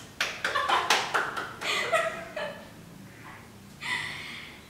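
A woman laughing in a quick run of short breathy bursts, then one more short laugh near the end.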